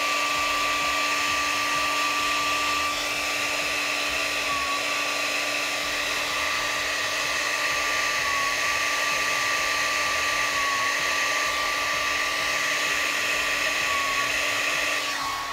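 Revlon handheld hair dryer running steadily, a constant blowing hiss with a high whine whose pitch dips briefly a few times; it stops at the very end.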